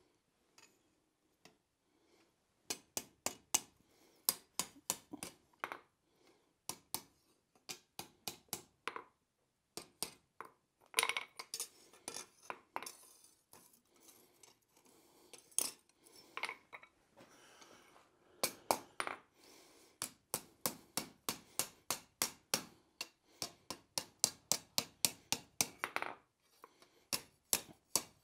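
Hand hammer striking a red-hot steel bar on an anvil, forging its curled end: runs of quick metallic blows, about two to three a second, with brief pauses between runs.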